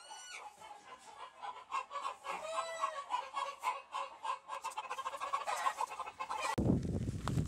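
Chickens clucking, a busy run of short repeated clucks and a few drawn-out calls. About a second before the end the clucking gives way to a low rumbling noise.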